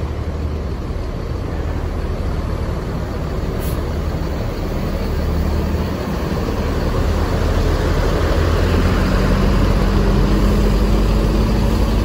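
Intercity bus engine running close by, its low rumble growing louder through the second half as the bus moves in, with an engine note that rises slightly near the end.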